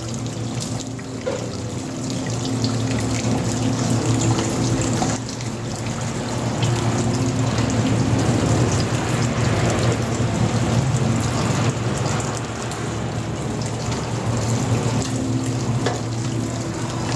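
Wort pumped by a small recirculation pump splashing steadily from the return pipe onto the mash, with a steady low hum underneath. The pump is running hard, a strong flow for the grain bed.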